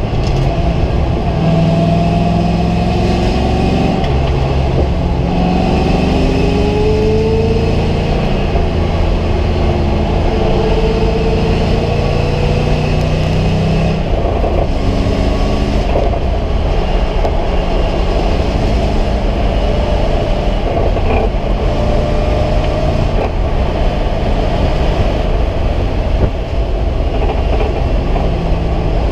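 Race car engine heard from inside the stripped, caged cabin at track speed. Its pitch climbs under acceleration and drops at each gear change, over steady road and wind noise.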